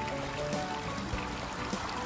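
Background music with soft held notes, over the steady splash of water falling through a three-tiered stone fountain into its basin.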